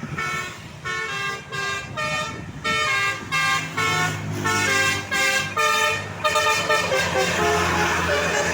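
Indonesian bus telolet horn, a Basuri multi-tone air horn, playing a quick melody of short chord-like notes, about two to three notes a second. A bus engine runs underneath from about three seconds in.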